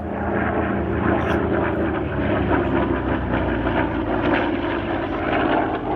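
Goodyear FG-1D Corsair's radial engine and propeller in a low pass, a steady propeller drone whose pitch falls slowly as the aircraft goes by.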